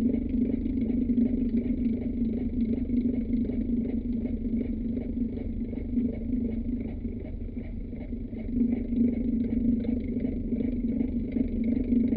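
Old fan running: a steady low hum with a fast, even flutter, dipping slightly in level about eight seconds in.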